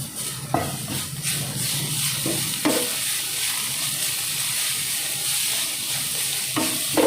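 Chopped vegetables and spices sizzling in oil in a pan, with a spatula stirring and scraping the pan in a few separate strokes.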